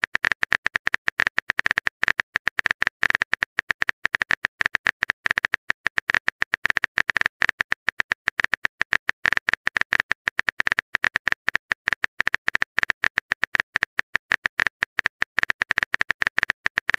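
Keyboard-typing click sound effect from a texting-story app: rapid, evenly repeated clicks, many a second, all at the same loudness, as a message is typed out.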